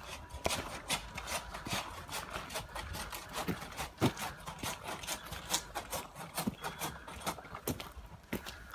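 Irregular light snapping and crackling of twigs and brushwood, several small cracks a second, with one sharper crack about four seconds in.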